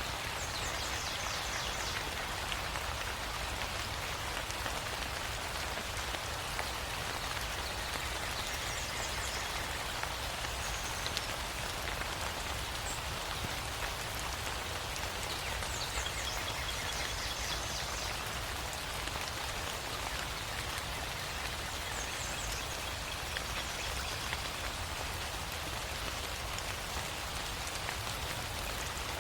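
Steady rain falling and pattering on surfaces, with a few short high chirps now and then.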